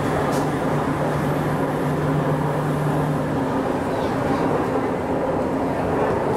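Cabin running noise of a Taipei Metro C381 train under way: a steady rumble of wheels on rail, with a low hum that stops about halfway through.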